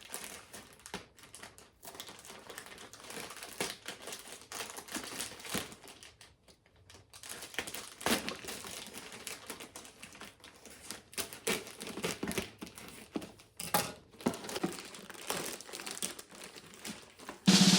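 A parcel being cut open, its packaging crinkling, rustling and tearing in irregular handling noises, with a quiet spell of about a second partway through. Drum-led music comes in near the end.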